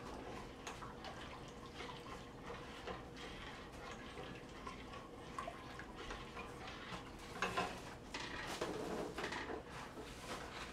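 Eggs being cracked one after another on the rim of a stainless steel pot, with light taps and the drip of egg falling in. Near the end there is a louder stretch that fits liquid being poured into the pot from a plastic gallon jug.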